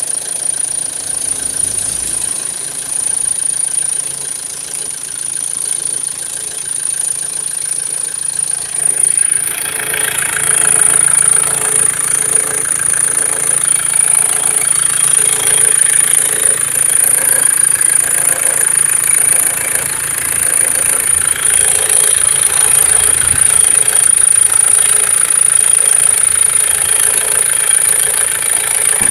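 Opel X20DTH 2.0 diesel engine idling with a high, steady whistle from the alternator belt. About nine seconds in, a louder squeal joins it, pulsing roughly once a second.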